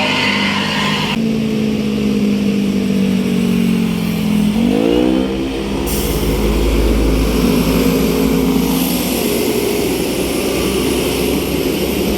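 A large bus engine pulling away and accelerating: a steady pitched drone that sweeps up in pitch about four and a half seconds in as it revs, followed by a heavy low rumble.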